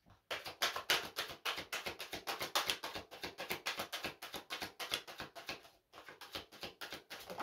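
A deck of oracle cards being overhand-shuffled by hand, the cards tapping and flicking against each other in a rapid, even patter, with a short break about six seconds in.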